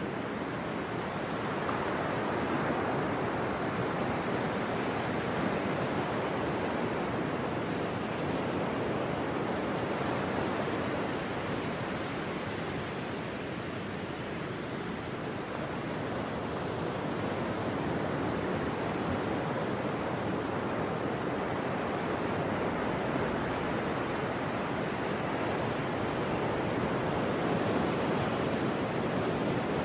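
Continuous rushing of ocean surf and breaking waves, swelling and easing slowly, a little softer around the middle.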